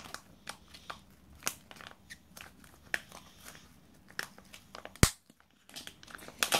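Foil wrapper of a Kinder Joy egg crinkling and tearing as small hands peel it off and handle the plastic egg, a run of light crackles and ticks. One sharp, loud click about five seconds in.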